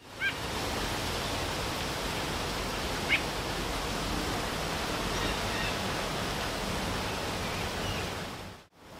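Steady rain falling, an even hiss, with a few short bird chirps: one sharp note about three seconds in and fainter ones around it. The sound cuts out briefly near the end.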